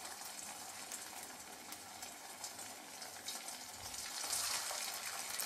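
Potato smileys deep-frying in hot oil: a steady sizzle that grows a little louder about four seconds in, as another smiley is slid into the oil.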